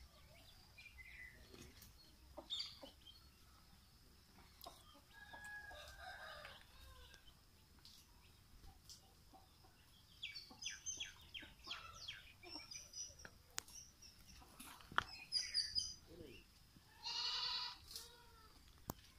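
Faint, scattered farmyard calls from a broiler rooster: short clucks and chirps, with a quick run of chirps midway and one louder, drawn-out call about a second long near the end.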